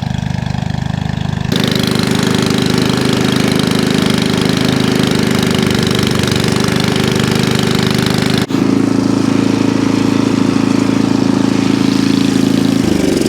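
Two-stage snowblower's single-cylinder four-stroke engine running steadily under load while it cuts through heavy wet snow. About a second and a half in it gets louder, with a rushing noise laid over the engine, and the sound shifts abruptly about eight and a half seconds in.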